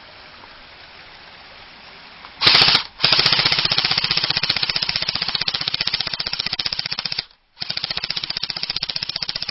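JG M4 Commando airsoft electric rifle (AEG) firing fully automatic: rapid, even clatter of the gearbox cycling. A short burst about two and a half seconds in, then a long burst of about four seconds, and after a brief break another burst through the end.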